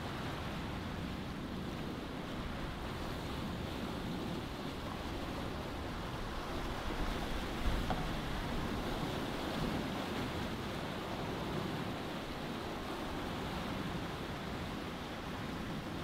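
Sea water rushing and washing along the hull of a sailboat under way, a steady noise with a brief louder surge about halfway through.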